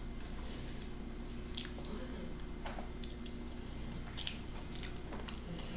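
Close eating sounds of a meal eaten by hand: wet squishing and chewing, with scattered small clicks and smacks as fingers press rice and meat on the plate. A faint steady low hum sits underneath.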